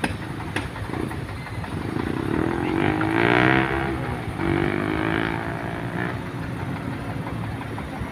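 A motor engine revving, its pitch rising and then falling over a few seconds, over a steady low rumble.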